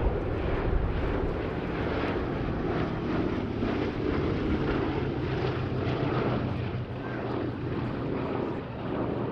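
Boeing B-17G Flying Fortress's four radial piston engines running in flight: a steady, loud propeller drone.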